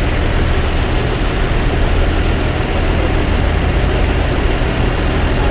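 Bus diesel engine idling: a steady, loud low rumble with no horn sounding.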